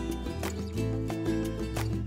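Instrumental background music: sustained melodic notes over a bass line, with sharp percussive hits now and then.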